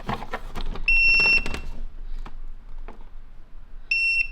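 Tire pressure monitoring display beeping as it powers up from the cigarette lighter: a few handling clicks, then a steady high beep of nearly a second about a second in, and another beep starting near the end.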